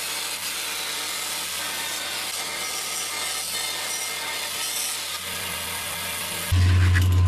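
Wood being sawn, a steady rasping hiss. About six and a half seconds in, a loud steady low hum starts suddenly.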